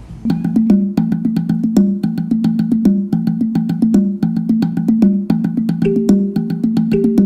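Background music that cuts in sharply: a quick, even rhythm of short struck percussive notes over a repeating low melodic figure.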